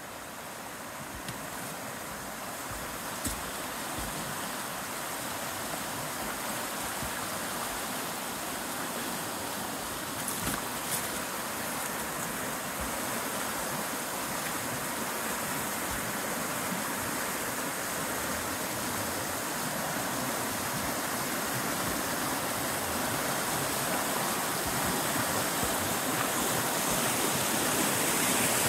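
Rain-swollen, muddy creek running high in flood, a steady rush of churning water that grows gradually louder toward the end. A few brief knocks stand out about three seconds in and again around ten to eleven seconds.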